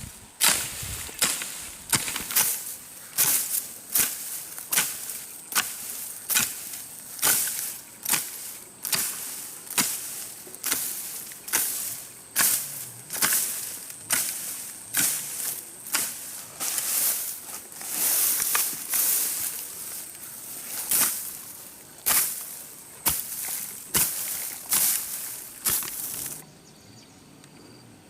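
Hand digging tool chopping into grassy soil to clear grass, about one stroke a second, each strike followed by a short scrape. The strokes stop shortly before the end, leaving faint insects.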